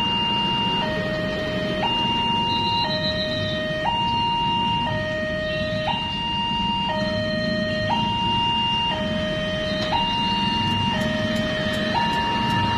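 Railway level-crossing warning siren sounding a steady two-tone hi-lo alternation, a high note and a lower note about a second each, repeating evenly over a low rumble. It is the signal that a train is approaching and the crossing gate is closing.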